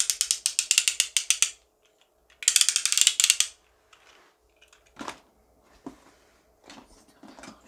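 A twist fidget toy being turned, clicking rapidly like a ratchet in two runs of about a second each. A few softer, scattered clicks and knocks follow.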